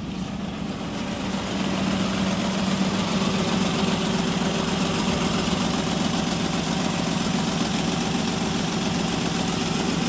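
Toyota Wigo engine idling roughly with the air conditioning on, a steady rattling with an even pulse and a shaking, uneven running. It is misfiring on cylinder 3, which the scan and inspection trace to a broken wire, an open circuit at the number 3 fuel injector.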